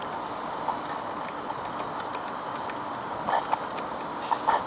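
Mamod steam beam engine being turned over by hand at the flywheel with the steam valve cracked, spitting condensate from its cylinders: a few short irregular puffs and knocks, mostly in the last second and a half, over a steady hiss.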